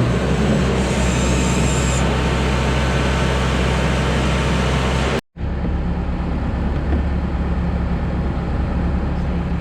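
Boatyard travel lift's engine running steadily with a low drone under a noisy hiss; it cuts out for a moment about five seconds in and resumes.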